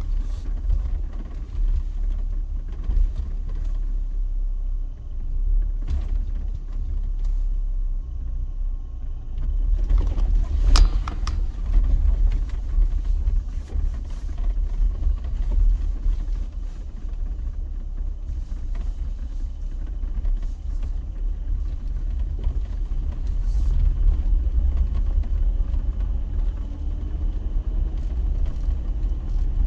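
Jeep driving slowly over a rough four-wheel-drive track: a steady low rumble of engine and tyres, with occasional sharp knocks and rattles from bumps, the loudest about ten to eleven seconds in.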